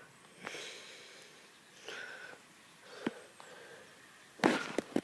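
Quiet background with a few faint sniffs and breaths, a single sharp click about three seconds in, and a louder breathy rustle near the end.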